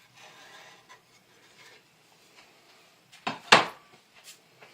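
Cut wooden board pieces being handled: a light rustle, then a few sharp wooden knocks as they are set down, the loudest two close together about three and a half seconds in.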